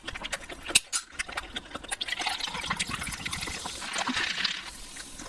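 Close-up eating sounds of spicy stir-fried noodles: wet mouth clicks of chewing, with a longer slurp from about two seconds in.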